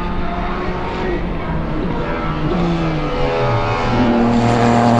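Race car engine sound revving: a steady engine note that sags in pitch a little past the middle, then climbs and grows louder toward the end.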